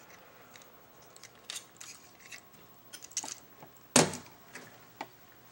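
Plastic Transformers Rescue Ratchet action figure being handled, its parts giving scattered light clicks and clacks, with one louder knock about four seconds in.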